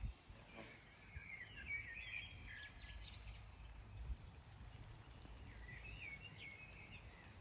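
Faint birdsong: two short bursts of chirping, warbling phrases, the second about five and a half seconds in, over a low steady rumble of outdoor background noise.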